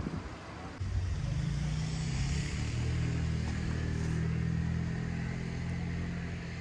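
Vehicle engine running steadily, coming in about a second in.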